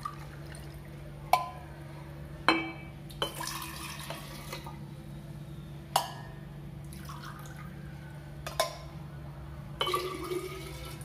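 Water poured from a steel pot into a drinking glass, then from the glass into a glass jug, several pours in turn. Sharp clinks of glass against steel come between the pours.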